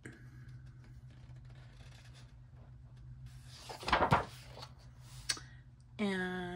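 Pages of a coloring book riffled quickly, a short fluttering rush of paper about four seconds in, with soft paper rustling from hands on the pages before it.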